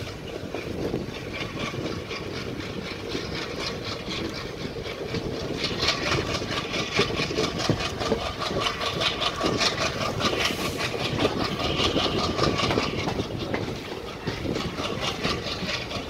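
Passenger train running, heard from an open coach door: the ALCO diesel locomotive chugging in a quick, even beat over the noise of the wheels on the rails.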